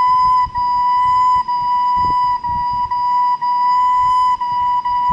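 Soprano recorder sounding one note over and over, each held for about half a second to a second and re-tongued lightly with short breaks between: a single-note tonguing exercise.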